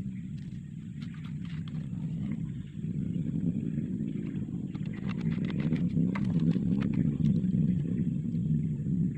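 A small engine running steadily, its drone getting louder about three seconds in, with scattered light clicks and knocks over it.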